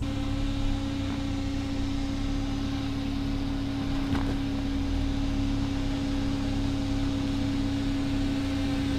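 A 2025 Ford Bronco Sport creeping down a rocky dirt trail, with a steady hum and a low rumble and a faint crunch of stones about four seconds in.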